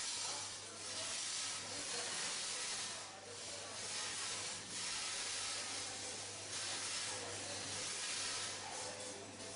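MK-60KZ sugar sachet packaging machine running, a steady hiss that swells about every one and a half seconds as it cycles, over a low steady hum.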